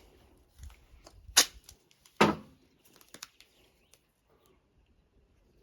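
Handling noise from fitting a Thermacell mosquito repeller with magnets and Gorilla tape: a few sharp clacks, the two loudest about a second and a half and two seconds in, then quiet rustling.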